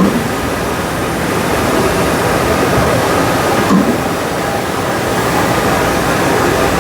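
Steady, loud exhibition-hall din: an even wash of noise with faint steady tones from machinery and the hall, and a couple of brief soft bumps.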